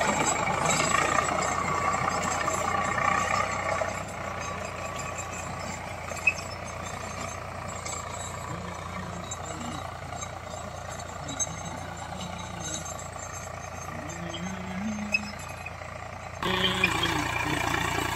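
Eicher 485 tractor's diesel engine running under load, pulling a rotavator that churns through the soil. Louder for the first four seconds, then steady and lower, with a sudden step up in level near the end.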